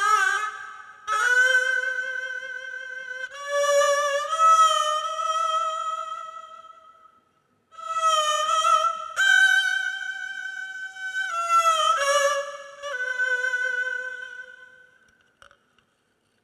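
Two haegeum, Korean two-string fiddles, bowed in two parts, playing long held notes with vibrato and sliding pitch between notes. The phrase fades to silence about seven seconds in, picks up again, and dies away near the end.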